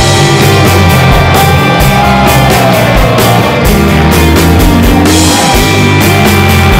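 Loud rock music: a steady drum beat under an electric guitar that bends its notes up and down.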